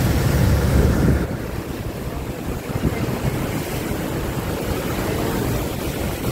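The Rhine Falls' whitewater rushing and churning close at hand, a steady loud noise. For about the first second, wind buffets the microphone with a heavy low rumble that then drops away.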